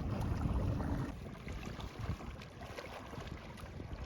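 Wind buffeting the microphone over water noise on a river, heavier for about the first second and then lighter.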